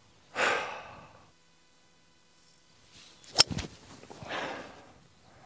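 A deep breath let out in a loud sigh, then about three and a half seconds in a sharp crack of a hybrid golf club striking the ball out of long rough, followed by a short breathy exhale.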